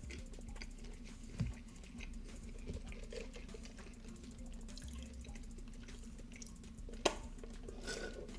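Quiet eating sounds: chewing with small wet mouth clicks, a sharper click about seven seconds in, then a sip through a straw from a drink cup near the end.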